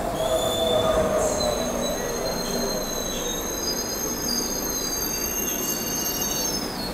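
Metro train running past close by: a steady rumble with several high-pitched wheel squeals that come and go, loudest about a second in.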